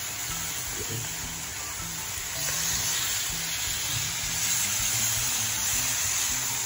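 Marinated lamb slices sizzling on a hot flat nonstick griddle pan with no butter. The sizzle grows louder about two and a half seconds in, as another slice goes onto the pan.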